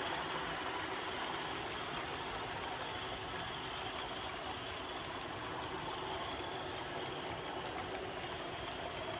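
OO gauge model train running steadily along the layout's track.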